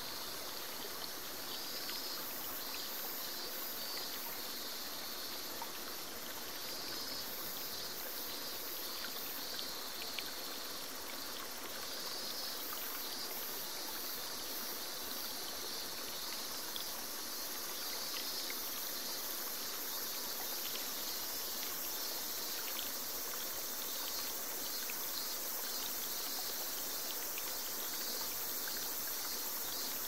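Small forest waterfall splashing steadily into a pool, with summer insects shrilling continuously in the high range.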